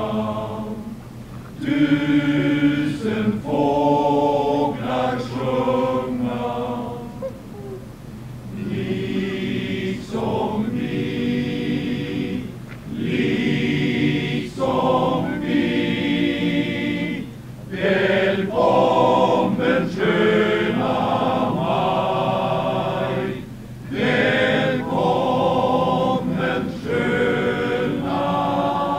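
Male-voice choir singing a cappella in phrases a few seconds long, with short pauses for breath between them.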